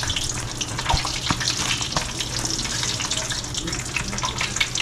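Hot frying grease crackling and sizzling steadily over a low hum, with a few sharp knocks about one to two seconds in.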